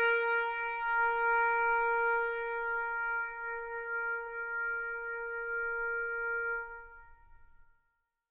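Closing note of background music: a single held horn-like tone with overtones, sustained and fading out about seven seconds in.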